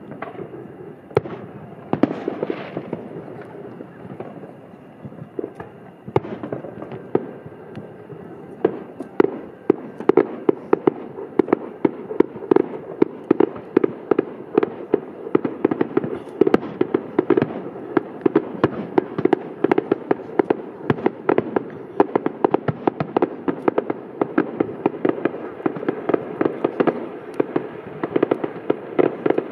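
Aerial fireworks show: shells bursting in bangs and crackles, scattered at first, then a rapid, dense string of reports from about nine seconds in.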